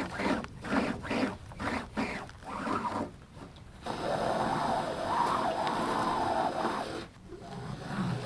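Breath blown into the valve of a canoe flotation airbag to inflate it by mouth: a quick run of short puffs, then one long blow held for a few seconds that stops abruptly.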